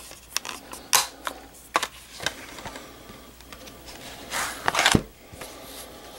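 Plastic DVD case and disc being handled: several sharp clicks in the first couple of seconds, then a longer rustle that ends in a knock about five seconds in.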